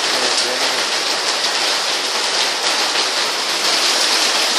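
Heavy rain pouring down steadily, a dense even hiss of rain hitting surfaces close to the microphone.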